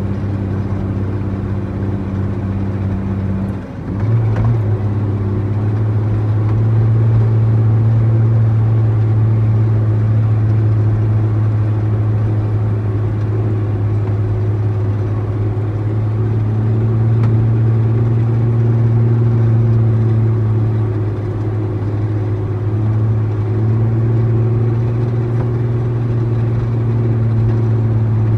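Heavy diesel truck engine running steadily. About four seconds in it dips briefly, then runs on at a slightly higher pitch and a little louder.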